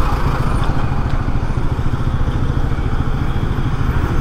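Bajaj Pulsar NS200's single-cylinder engine running steadily at low speed, a fast, even pulsing.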